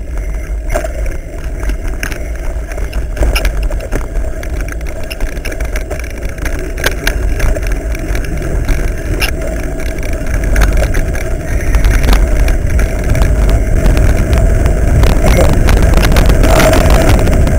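Mountain bike riding along a dirt forest trail, heard from the rider's own camera: a steady low rumble with many clicks and rattles from the bumps, louder from about ten seconds in.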